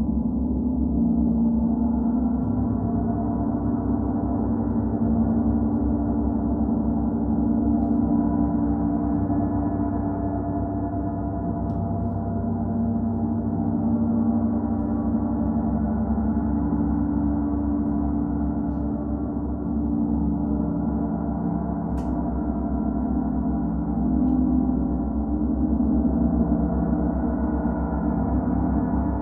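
Gongs sounding in a continuous wash of many overlapping low tones, with no separate strikes, gently swelling and ebbing as in a gong bath. A single faint click about three-quarters of the way through.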